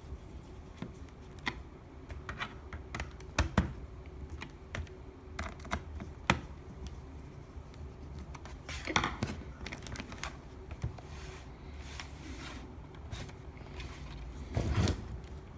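Irregular plastic clicks and taps from a laptop's case and keyboard deck being pressed and handled during reassembly, with a scraping rustle about nine seconds in and a heavier thump near the end.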